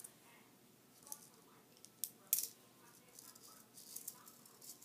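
Plastic magazine of an MP40-style BB gun clicking and rattling in the hands as its spring is pulled down: scattered light clicks, the loudest a little over two seconds in.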